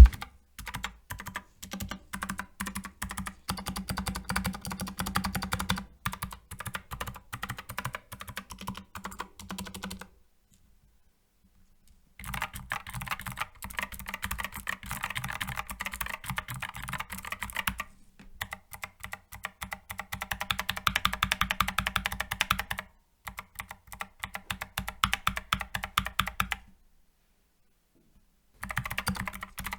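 Fast typing on a Skyloong SK64S 64-key mechanical keyboard with optical switches and PBT keycaps: dense runs of clicking keystrokes. The typing stops for about two seconds twice, and there is a brief lull between.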